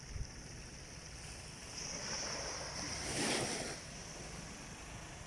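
Gentle sea wave washing in, swelling to a peak about three seconds in and then falling away, over a steady hiss of calm surf.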